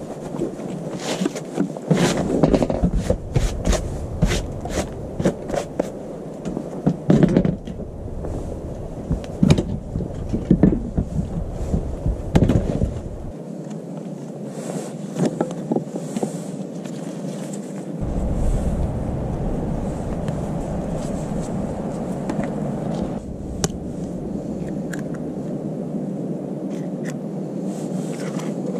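Handling noise: a string of sharp knocks and clicks over the first dozen seconds, then steadier scraping with scattered taps as food is worked with a knife in a wooden bowl.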